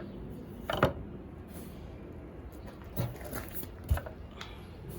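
Handling sounds: three short knocks or clicks, the first about a second in, then two more a second apart near the middle, over a steady low background noise.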